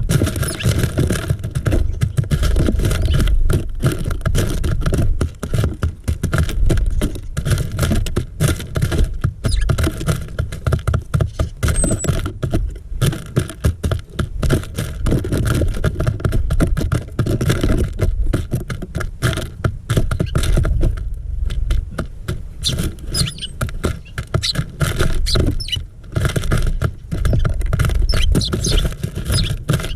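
Rapid, irregular tapping and scratching of small birds pecking seed and shuffling their feet on a plastic bird feeder right against the microphone, with a few faint high chirps.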